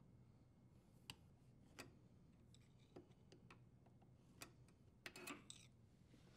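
Near silence with a few faint, scattered clicks, about one a second, from a screwdriver and fingers working a dishwasher's front leveling legs.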